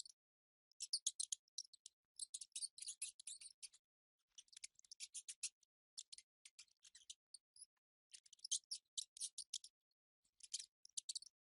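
Mice making quick, high-pitched clicking chatter in bursts of about a second, separated by short pauses.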